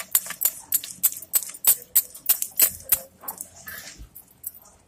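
Ghee being whipped by hand in a plastic bowl for ghevar batter, rapid rhythmic squelching strokes about four a second, with the metal bangles on the wrist clinking at each stroke.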